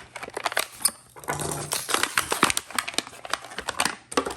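Plastic packaging crinkling and snapping with many quick clicks as a JB Weld two-tube epoxy pack is handled and opened by hand.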